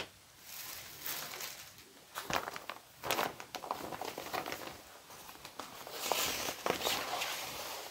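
Nylon windbreaker being handled and shifted, its fabric rustling and crinkling in short bursts, busier about six seconds in.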